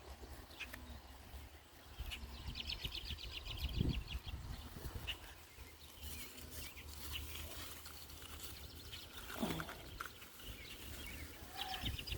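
Outdoor garden ambience: a bird's fast trill of rapid repeated notes about two and a half seconds in and again near the end, over a low rumble, with scattered clicks and rustles.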